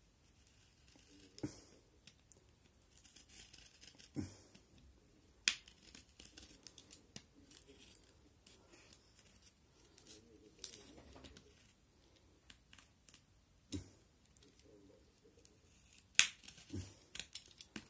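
A sealed hockey card pack being worked open by hand: scattered sharp snips and clicks, the loudest two about five seconds in and near the end, with faint rustling of wrapper between them.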